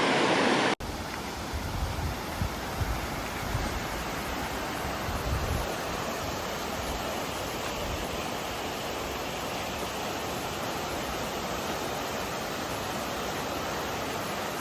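Steady rushing of a mountain river's water, an even hiss with some low rumbling in the first few seconds; the sound cuts abruptly about a second in and then resumes.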